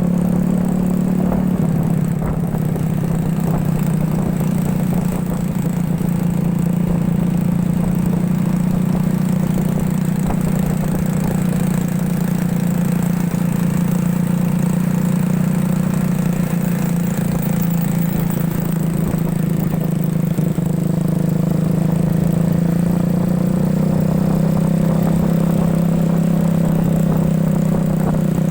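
Motorcycle engine of a homemade ATV running at a fairly steady speed, its pitch edging up slightly near the end.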